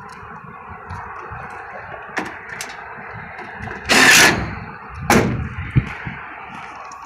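A few light knocks, then a loud clatter about four seconds in lasting half a second, another knock and a sharp click, over a steady hum.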